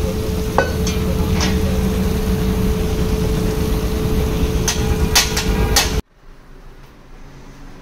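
A water jet from a spray wand hisses onto and through a car radiator core being flushed clean, over a steady machine hum with a constant tone and a few sharp clicks. About three-quarters through it cuts off abruptly to a much quieter background.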